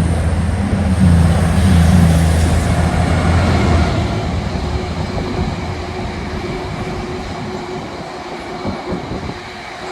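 Class 222 Meridian diesel multiple unit passing at speed. The drone of its underfloor diesel engines is strong for the first few seconds, then the rush of wheels on rail slowly fades away.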